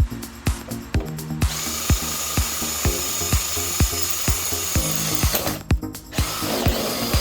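Power drill running steadily for about four seconds, starting about a second and a half in and stopping abruptly, over background music with a steady beat.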